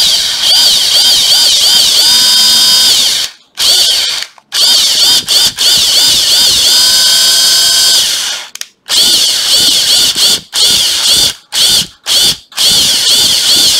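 National EZ6507 cordless drill-driver motor run in repeated bursts on the variable-speed trigger, its whine rising and falling as the trigger is feathered and held steady at full speed for a second or so at a time, cutting off sharply about half a dozen times. The stops test the electric brake, which the seller finds works only some of the time and puts down to a faulty trigger switch.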